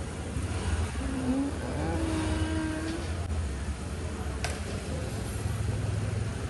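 Vehicle engines running in the street, with an auto-rickshaw pulling up, and a single sharp click about four and a half seconds in.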